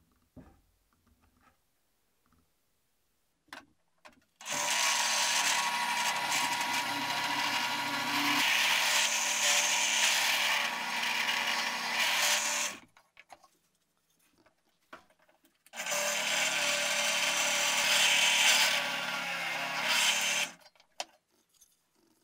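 Benchtop drill press running and boring through laminated plywood: two runs of several seconds each, the first starting about four seconds in and the second a few seconds after it stops. A few light knocks come before and between them.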